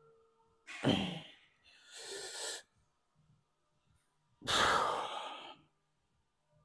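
A man's heavy, forceful exhalations while straining through dumbbell reps: three separate breaths, the first about a second in, a softer one around two seconds, and the loudest and longest at about four and a half seconds.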